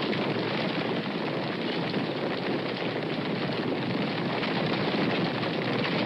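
A herd of horses galloping: a dense, continuous drumming of many hoofbeats blurring together. It has the narrow sound of an old recording, with no deep bass and no high treble.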